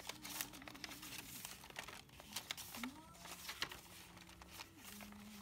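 Paper pages of a handmade junk journal being turned and handled, with repeated soft rustling and crinkling of paper.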